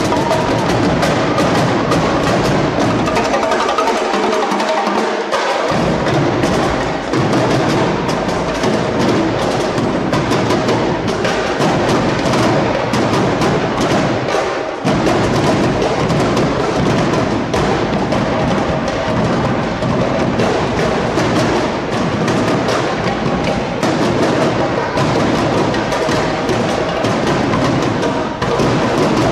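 A drill-team drumline playing a fast, driving cadence: rapid snare-drum strokes and sharp stick clicks over bass drums. The bass drums drop out for a couple of seconds and come back in about five seconds in.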